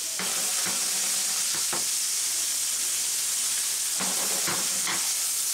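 Pounded rib steaks sizzling as they sear on one side in a frying pan: a steady hiss, with a few light clicks and scrapes as the pan is handled.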